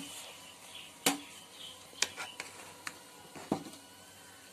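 A spoon clinking and scraping against the side of a metal cooking pot while cooked biryani rice is stirred and turned over: five or so sharp clicks, the loudest about a second in.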